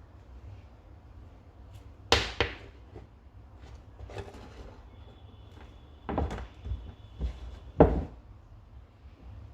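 Handling noise from bench work: a few sharp knocks and clicks of small parts and tools being picked up and set down, one about two seconds in and a cluster near the end, over a low steady hum.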